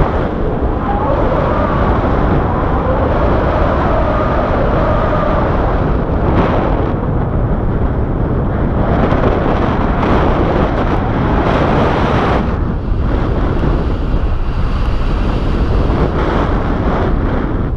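Wind rushing over an action camera's microphone during a tandem paraglider flight, a steady loud buffeting that rises and falls with the gusts. A faint wavering tone sits under it for a few seconds near the start.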